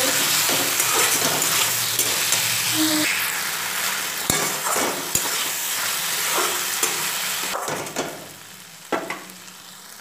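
Cubed potatoes and spice masala, moistened with a little water, sizzling in hot mustard oil in a metal kadai while a metal spatula stirs and scrapes them, with scattered knocks of the spatula against the pan. The sizzle drops off sharply about eight seconds in.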